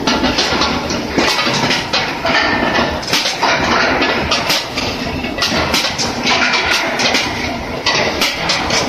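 Skew rolling mill steel ball production line running: a steady machinery din with frequent, irregular metallic clanks and clatter.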